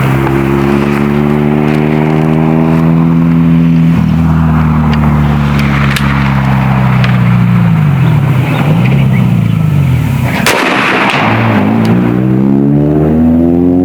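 A motor engine running loudly, its pitch holding, then sagging and dipping a couple of times before climbing again near the end. A single sharp crack sounds about ten and a half seconds in.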